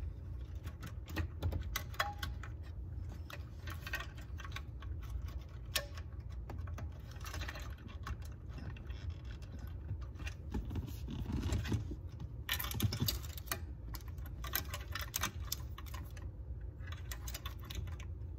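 Small plastic clicks, ticks and rattles of wiring connectors and bulb sockets being handled and pushed into the back of a 1976 Corvette's instrument cluster. The clicks come irregularly, in denser flurries now and then, over a steady low hum.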